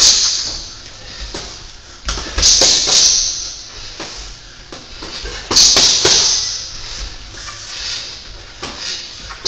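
Boxing gloves smacking against a trainer's raised gloves in quick flurries of punches. Loud hissing bursts return every three to four seconds, the loudest about two seconds in and at five and a half seconds.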